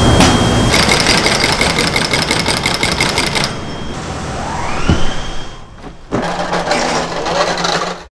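Corrugated-board factory machinery running with a fast, even clatter of many strokes a second. A rising whine and a single knock follow as large cardboard sheets are handled, then a hum with clatter that stops abruptly at the end.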